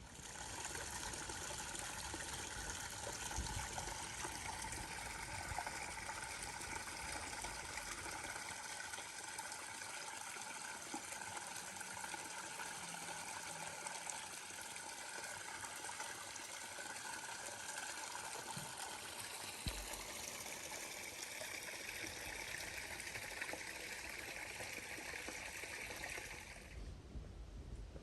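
Water running steadily in a stream, an even rushing that starts suddenly and cuts off shortly before the end.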